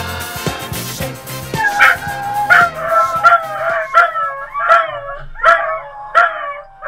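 Upbeat background music that stops about a second and a half in, then a dog baying: about seven loud bark-howls in a row, each a sharp start falling into a wavering tone, a little more than one a second.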